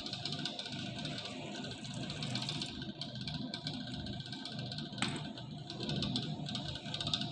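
Steady low hum of running laboratory equipment with faint steady tones and a light hiss, and a single short click about five seconds in.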